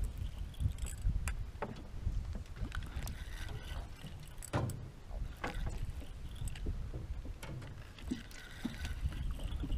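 Wind rumbling on the camera's microphone over the water, with scattered clicks and knocks from handling a spinning rod and reel while playing a hooked fish.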